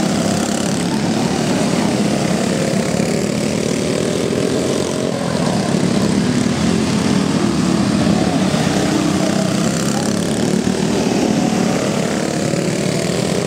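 Several Briggs & Stratton Raptor go-kart engines, small single-cylinders, running at racing speed together, their pitches rising and falling as the karts accelerate and lift through the turns.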